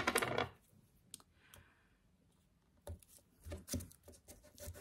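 A brief rasp of masking tape being pulled off its roll at the start, then scattered light clicks and taps as a clear acrylic stamp block and card are handled on a cutting mat.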